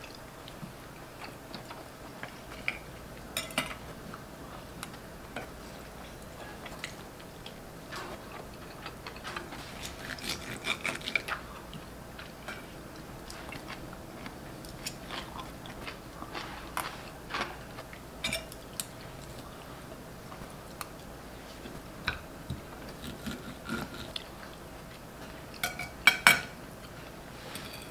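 Steel knives and forks scraping and clinking on ceramic plates as steak is cut, with chewing, in scattered short clicks; the loudest clinks come near the end.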